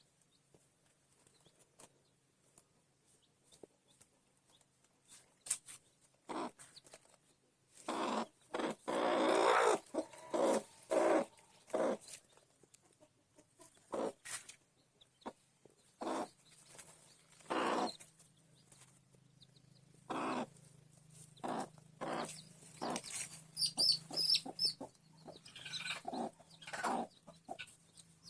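Chickens clucking in short, separate calls, with a busier run of clucks about a third of the way in.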